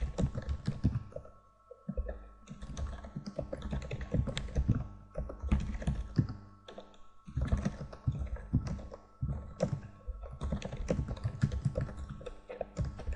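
Computer keyboard typing: runs of quick keystrokes, broken by two short pauses, one about a second and a half in and one about halfway through.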